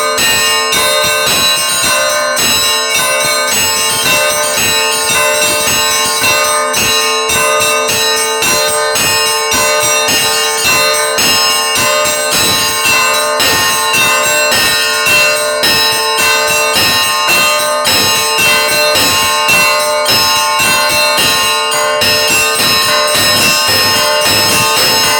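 Church bells ringing up close: a steady, unbroken run of strokes several times a second, each bell's tone ringing on and overlapping the next.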